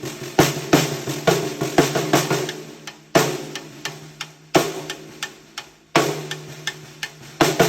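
TAMA Star Reserve Vol.3 snare drum with a bubinga/walnut shell, played with sticks: a quick run of strokes at first, then loud accented hits about every second and a half with softer ghost notes between them. The drum rings on after each hit.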